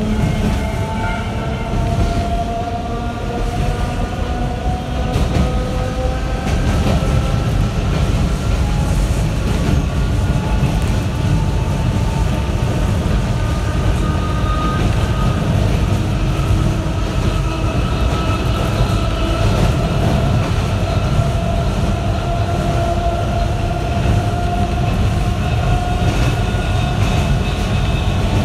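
Sanki Railway 270 series narrow-gauge electric train running, a steady low rumble of wheels on rails under a motor whine that climbs in pitch as the train gathers speed, once in the first few seconds and again over most of the rest.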